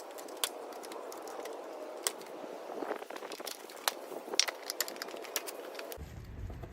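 Scattered sharp clicks and light rattles of hands handling a pickup's plastic grille assembly and its clips, over a faint steady background noise.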